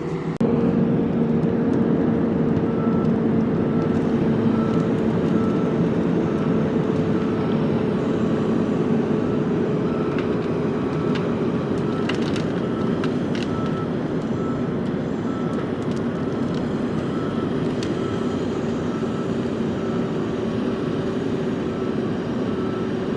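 Diesel engine of a tracked feller buncher running steadily, with a faint short beep repeating evenly from a few seconds in until near the end.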